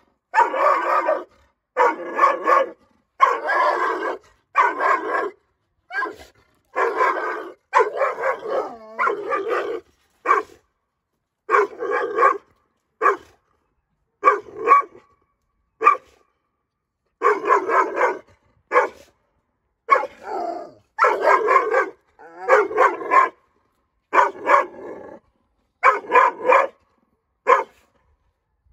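Nine-month-old female Dogo Argentino barking at a stranger, defensive-aggressive barking. The barks come about once a second, some in quick pairs, and keep going.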